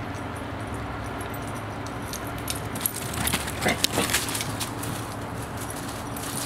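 Metal tags on dog collars jingling as a wolf dog and a puppy run and wrestle, the clinking busiest from about two and a half to four and a half seconds in, over a steady low background hum.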